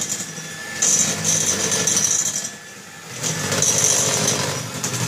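Electric hand mixer switched on and running, its beaters whisking eggs into creamed butter and sugar in a glass bowl. It starts suddenly and the sound swells and eases as the beaters move through the batter.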